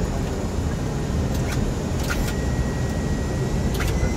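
Steady rumble and rush of air and engines on the flight deck of an Airbus A319 on final approach. A few short clicks come through it, and a faint steady high tone starts about halfway through.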